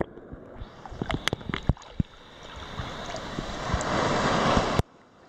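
Sea water sloshing and bubbling around a camera dipped in and out at the surface: muffled under water with a scatter of clicks and pops, then a swelling wash of splashing as it comes up, which cuts off abruptly near the end.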